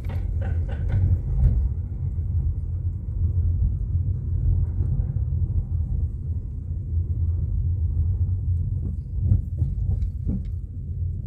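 A car driving: a steady low rumble of engine and road noise, with a few short knocks or clicks in the first second or so and again about nine to ten seconds in.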